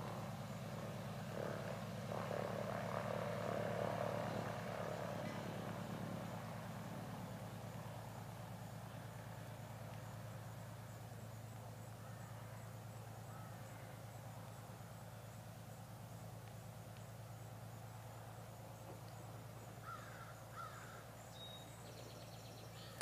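Engine drone of a small motor craft moving away across the lake, loudest a few seconds in, then slowly fading. A couple of short bird chirps near the end.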